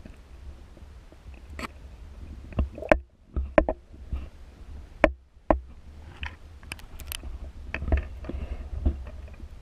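Muffled underwater sound picked up through a waterproof camera housing: a steady low water rumble with about a dozen sharp knocks and clicks scattered through it.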